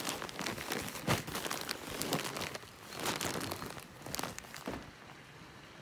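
Torn plastic bag of potting mix crinkling and rustling as it is handled and tipped, with the mix spilling out of it onto loose soil. Irregular crackles, with one sharper click about a second in, getting quieter near the end.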